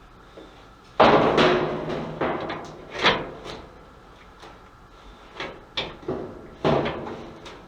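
A series of knocks and clatters from hard objects being handled, the loudest about a second in with a brief ringing tail, then single sharp knocks every half second or so.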